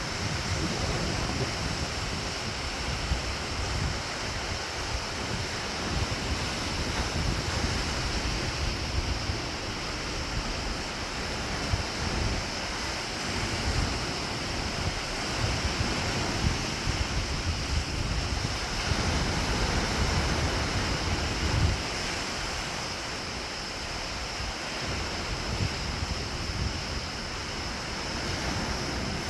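Ocean surf breaking and washing up the beach in a continuous wash, with wind buffeting the microphone in gusts.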